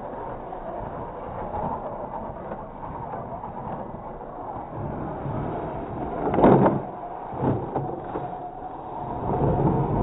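Radio-controlled truck's electric motor and gearbox whining as it crawls up a loose, frozen dirt mound. A short louder burst about six and a half seconds in, and a smaller one about a second later.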